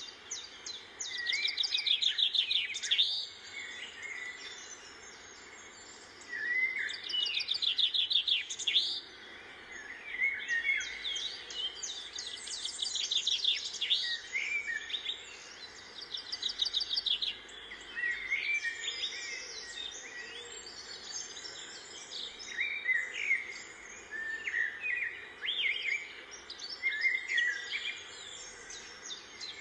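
Small birds singing and chirping: bursts of fast, high trills repeated every few seconds, with short chirps in between.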